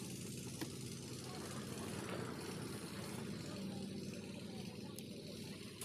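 A steady low engine-like hum, with a sharp click about half a second in and a fainter one near the end.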